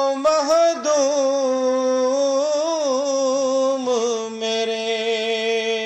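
A solo singer holds one long drawn-out vowel in a Punjabi devotional naat, with small ornamental turns in pitch and no instruments heard.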